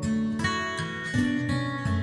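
Background music: an acoustic guitar strumming chords, the chords changing several times.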